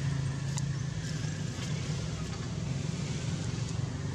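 A motor vehicle's engine running steadily, a low drone, with a few faint clicks.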